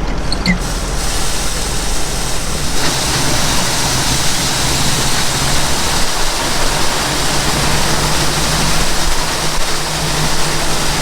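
Tractor engine running under a steady rushing hiss that grows fuller about three seconds in: shelled corn pouring from the grain cart's unloading auger into a wagon.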